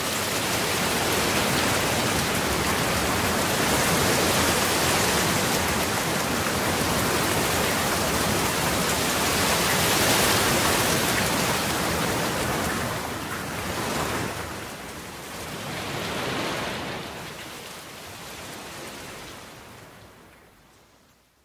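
Steady rain, a dense even hiss that swells and eases a few times before fading out over the last several seconds.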